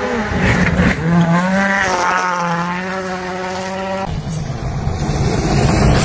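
Turbocharged four-cylinder WRC rally car engine at high revs, its pitch rising and falling as the throttle is worked and gears change on a gravel stage. About four seconds in, the sound switches suddenly to a closer, noisier pass of a Toyota Yaris WRC sliding on gravel.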